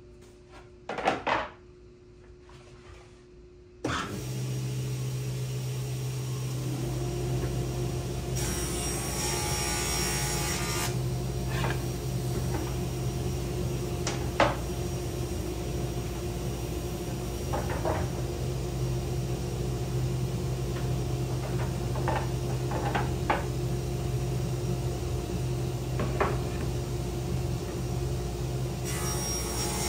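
A couple of sharp knocks, then a table saw switched on about four seconds in that keeps running with a steady hum. The blade rips through a wooden board twice, once a few seconds after start-up and again near the end, with scattered clicks and knocks between the cuts.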